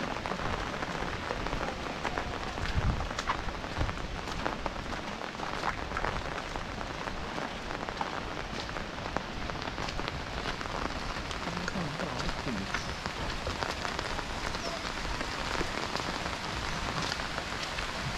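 Steady rain falling: an even hiss with many small scattered drop taps throughout.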